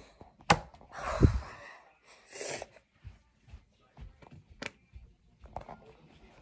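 Close-up phone handling noise: a few sharp clicks and knocks with short breathy puffs near the microphone, the loudest a click about half a second in and a breathy burst with a low thump about a second later.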